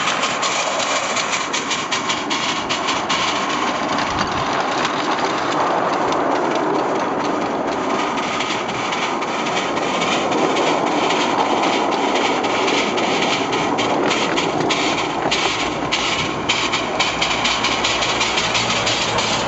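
7¼-inch gauge American-style miniature steam locomotive running along its track: a steady rushing of the running engine and wheels with rapid clicking throughout.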